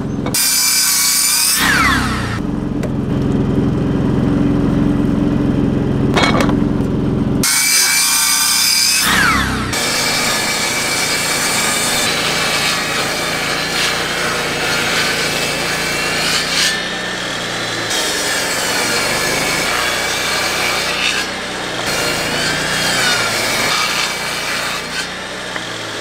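Electric power saws cutting wooden boards: a few short cuts on a sliding compound miter saw in the first several seconds, then a portable jobsite table saw running steadily through a long rip cut from about ten seconds in.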